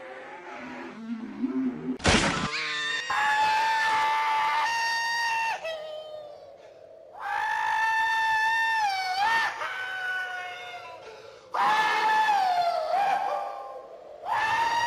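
A sudden loud bang about two seconds in, followed by several long, high-pitched human screams, each held for one to two seconds with short breaks between them.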